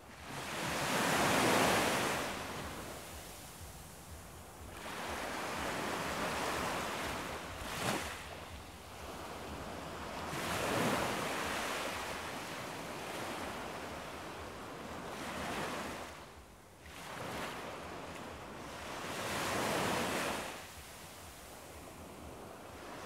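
Ocean waves washing in, the surf swelling and fading about every four to five seconds, with one brief sharp sound about eight seconds in.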